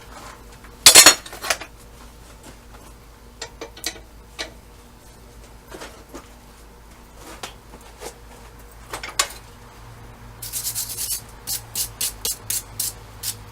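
Steel tools and workpiece clanking in a blacksmith's shop: one loud metallic clang about a second in, scattered light clinks, then from about ten seconds a run of quick sharp metallic taps, about four a second.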